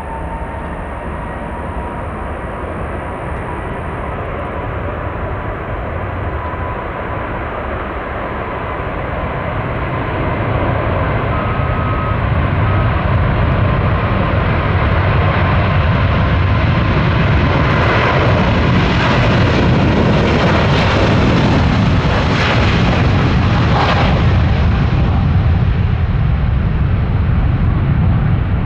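Jet airliner engines: a broad rumble that grows louder over the first ten seconds or so and then holds loud, with a thin whine running through it and a few sharp crackles about two-thirds of the way through.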